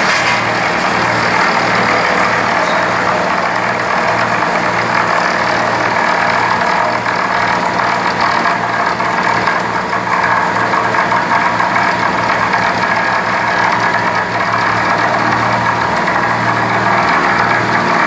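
An engine running steadily at a constant speed, with a low even throb.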